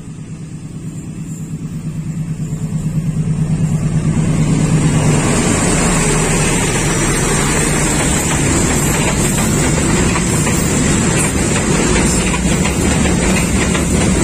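Diesel freight locomotive approaching and passing close, its engine throbbing ever louder over the first five seconds. Then comes the steady rumble of container flat wagons rolling by on the rails.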